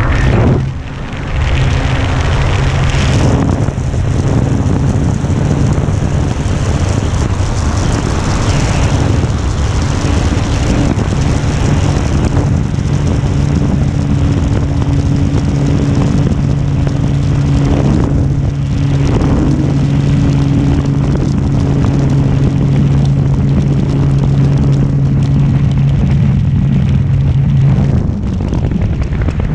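Carbon-Z Cessna 150 RC model plane's electric motor and propeller running at a steady pitch in flight, over a heavy rush of wind on the microphone. The hum stops near the end.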